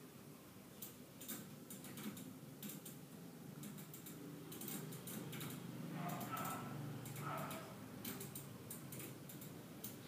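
Irregular light clicks and knocks as a toddler handles laundry and the drum of a front-loading washing machine, with a couple of short soft sounds in the middle.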